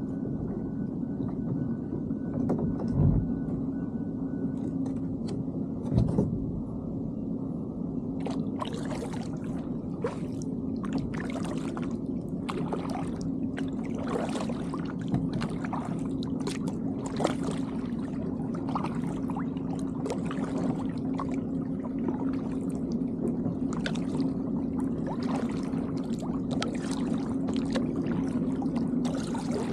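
Kayak paddle strokes: water splashing and dripping off the paddle blades in a steady series that starts about eight seconds in, over a steady low hum. Two dull thumps come a few seconds before the strokes begin.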